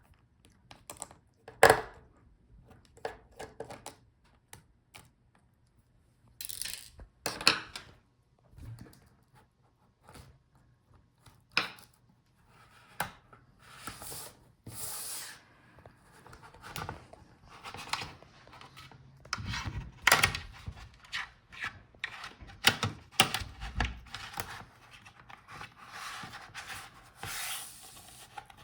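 Hands and small tools working on a laptop's display lid: irregular clicks and taps with stretches of rubbing and scraping, as the screws in the middle come out and the LCD panel is worked loose.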